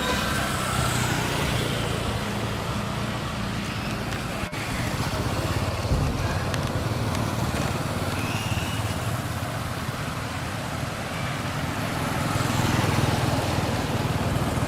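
Street traffic: motor vehicle engines running steadily, a little louder near the end.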